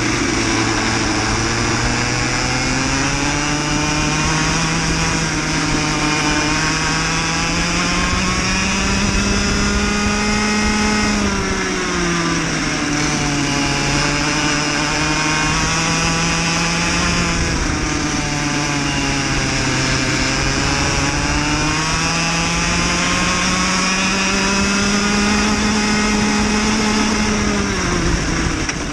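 Cadet kart engine at racing revs, heard from on board the kart: the pitch climbs steadily along the straights and drops sharply three times as the kart brakes for corners, the last drop near the end.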